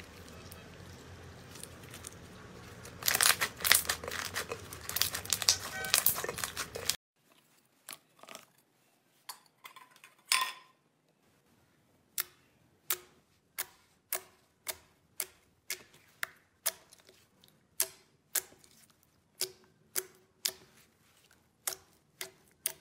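Sticky slime being stretched, with dense crackling and crinkling that grows louder a few seconds in. After a sudden cut, slime is pressed and squeezed by hand, giving sharp, crisp clicking pops at about one and a half a second.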